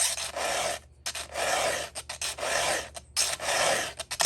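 A hand file rasping across the cutter tooth of a new chainsaw chain in repeated strokes, about two a second, with brief pauses between some of them. This is the chain's first filing, worked on the top of the tooth rather than down in the gullet.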